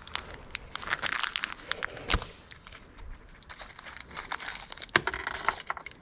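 Plastic packaging of an aftermarket car aerial kit crinkling and rustling as it is handled and opened, with irregular sharp clicks; the loudest click comes about five seconds in.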